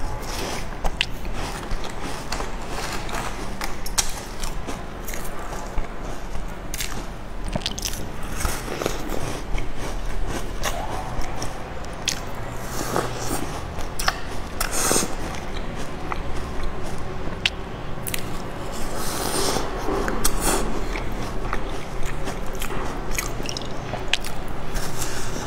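Close-miked eating of large crumbly sesame-topped cookies, some pieces dipped in milk: bites and chewing with many small crunches and crackles, busier in a couple of stretches.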